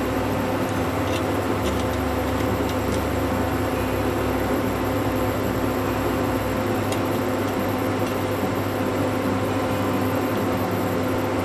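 Induction cooktop running with a steady fan-and-coil hum while oil heats in a pressure cooker, with a few faint ticks.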